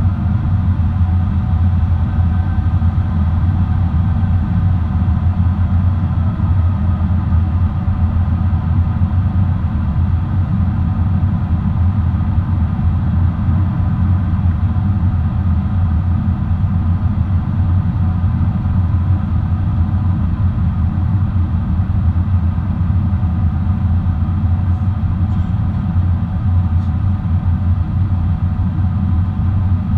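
Boeing 777-300 airliner in flight, heard from the passenger cabin: a steady, loud low drone of the jet engines and airflow, with a faint engine whine above it.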